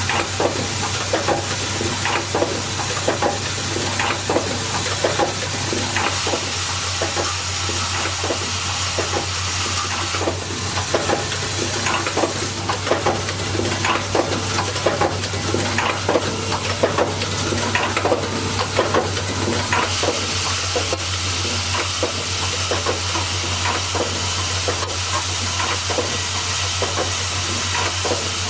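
Automatic welding machine for MCB bi-metal support frames running: a steady low hum and hiss with constant irregular metallic clicks and clatter of small parts.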